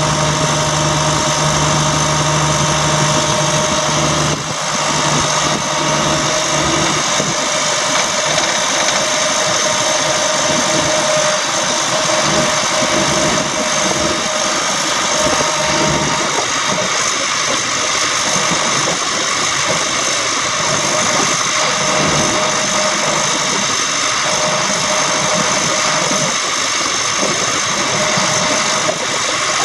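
Caterpillar 3126 inline-six diesel of a Freightliner FL70 service truck running at a steady speed, with a steady high whine over it. The deepest part of the drone drops away about four seconds in.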